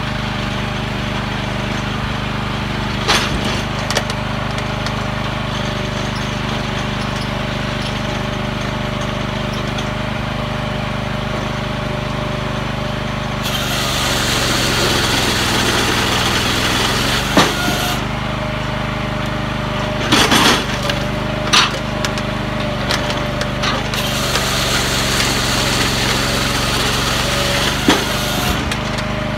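The 14 hp Kohler engine of a firewood processor running steadily while the machine works a log. Two stretches of louder harsh hiss come about halfway through and again near the end, with scattered sharp cracks and knocks of wood.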